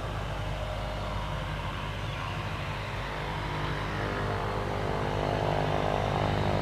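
Pilatus PC-12 NG's single Pratt & Whitney PT6A turboprop running at low taxi power, a steady hum with a whine above it. It grows louder over the last couple of seconds as the aircraft moves into position on the runway.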